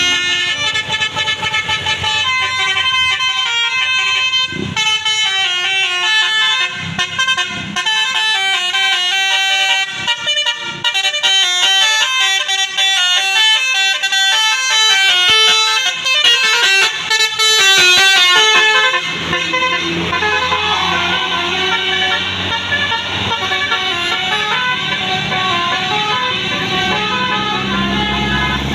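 Multi-note telolet basuri horn on an Indonesian tour bus playing a tune of quick stepped notes, changing to longer held notes about two-thirds of the way through.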